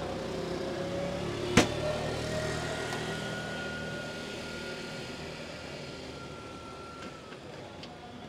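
Street traffic with a passing vehicle whose sound swells and then slowly fades. About a second and a half in there is one sharp snap as the car's plastic front bumper is pressed into place by hand.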